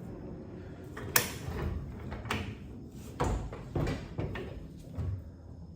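A series of metal clunks and knocks from a 1985 Chevrolet Monte Carlo's door being shifted against its new hinges while it is lined up, with a sharp click about a second in and several heavier thumps after it.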